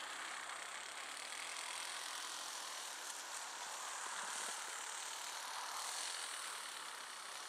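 Radio-controlled model aeroplane's engine running faintly in the distance as the plane taxis on the ground, a steady buzz.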